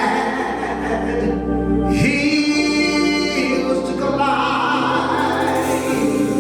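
Gospel music with singing: sustained, choir-like voices over held chords and a steady low bass, the harmony changing about two seconds in and again past the midpoint.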